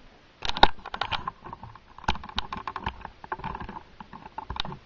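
Handling noise from the camera being picked up and carried: a quick series of clicks, knocks and rubbing sounds starting about half a second in.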